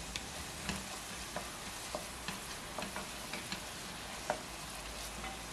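Chopped onion and garlic sizzling in olive oil in a stainless steel pot, stirred with a wooden spoon that gives scattered light clicks and scrapes against the pot.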